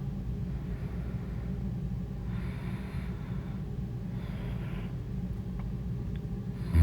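A sleeping person breathing heavily between snores over a steady low rumble, with two breaths about two and four seconds in. A loud snore begins at the very end.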